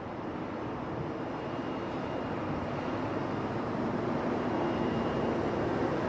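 Steady rumble of the cruise ferry M/S Amorella's machinery and ventilation heard on its open deck, growing slowly louder.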